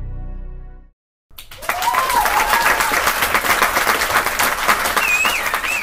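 Soft ambient music fades out within the first second; after a brief silence a crowd bursts into applause, dense clapping with a few whistles rising and warbling above it, most of them near the end.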